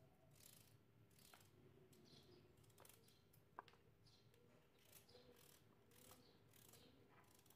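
Near silence, with a few faint clicks of a knife cutting raw turnip into rough chunks in the hand; the most distinct click comes about three and a half seconds in.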